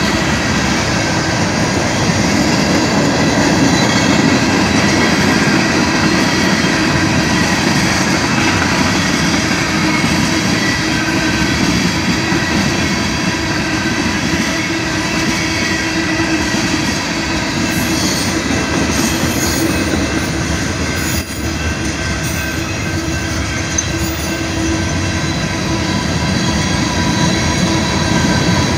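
A loaded freight train's cars rolling past a grade crossing, with a steady heavy rumble and a continuous metallic squeal from the wheels on the rails.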